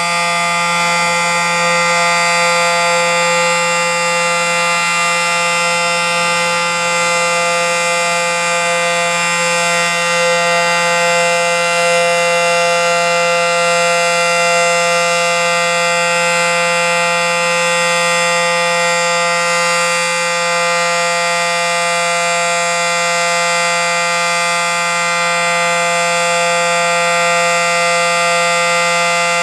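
Federal Signal SD-10 dual-tone electromechanical civil defense siren sounding a steady alert: an unchanging chord of two held tones with no wind-up or wind-down.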